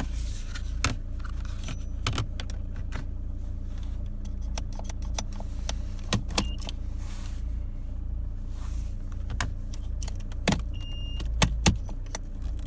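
Irregular sharp plastic clicks and knocks from handling a Vauxhall Insignia's automatic gear stick knob and its clip-on trim surround, loudest in a cluster near the end, over a steady low hum.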